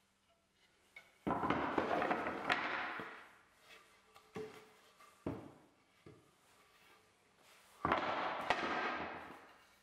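Wooden boards being set down and slid across a perforated workbench top: twice a sharp knock followed by about a second and a half of scraping that fades, with a couple of single wooden knocks in between.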